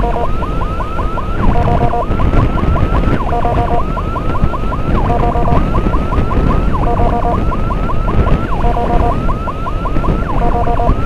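Electronic emergency siren cycling a repeating pattern about every two seconds: a short block of steady stepped tones, then a run of quick rising chirps. It sounds over the rumble of a motorcycle engine and wind on the rider's microphone.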